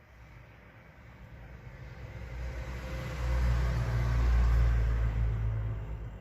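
A vehicle passing by: a low rumble that swells gradually, peaks for a couple of seconds and fades away.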